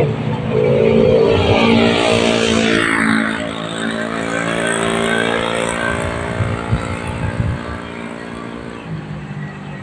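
A motor vehicle passes close by on the bridge road. Its engine note drops in pitch as it goes by, then a steady engine hum fades away toward the end.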